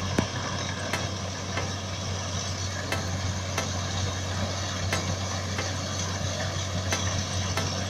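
Rice combine harvester running steadily: an even engine hum under a dense mechanical noise, with a few faint clicks.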